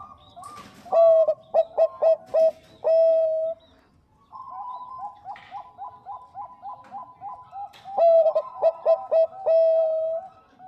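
Zebra dove (perkutut bangkok) cooing song, given twice. Each bout is a run of soft, quick coos followed by a few loud clipped notes and one long drawn-out note. The loud parts come about a second in and again about eight seconds in.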